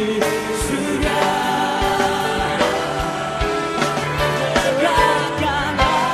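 Live band playing an upbeat Indonesian Christian worship song, with a male lead voice and backing singers over a steady drum beat.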